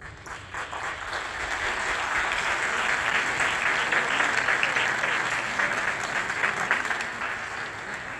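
Crowd applauding: many hands clapping together, swelling over the first second or two and thinning out near the end.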